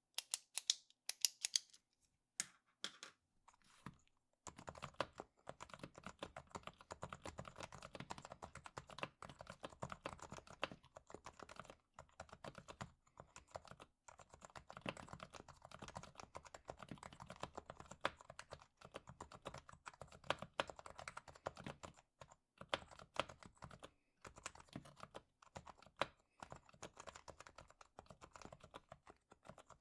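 A few sharp clicks of a Bic Clic pen in the first second and a half, then continuous typing on a lubed and tuned HHKB Hybrid Type-S with silenced Topre switches. A few sparse keystrokes come first, and steady fast typing starts about four seconds in.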